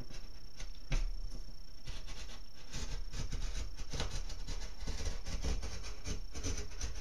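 Utility knife blade scoring the paper face of drywall: a steady run of short, scratchy scraping strokes, with a sharper click about a second in.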